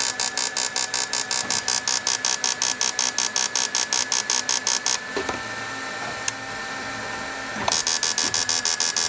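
Cricket V2 electrofishing inverter buzzing under load in a fast, even pulse of about seven a second, with a steady whine under it. The pulsing stops for about two and a half seconds, with a click in the gap, then resumes as the machine is switched to another saved pulse setting.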